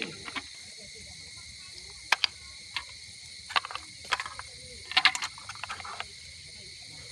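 Cooked snail shells clicking against one another and the metal tray as hands pick through them, in scattered sharp clicks with a cluster about five seconds in, over a steady high hiss.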